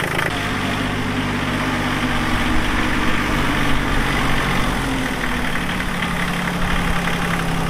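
Massey Ferguson 1240 compact tractor's diesel engine running steadily as the tractor drives across grass; the engine note drops slightly about five seconds in.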